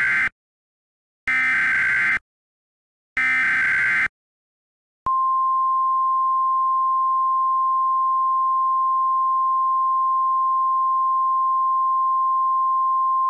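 Emergency Alert System SAME header: the tail of one buzzing digital data burst, then two more, each about a second long and a second apart. About five seconds in, a single steady high tone starts and holds: the weather radio's 1050 Hz warning alarm.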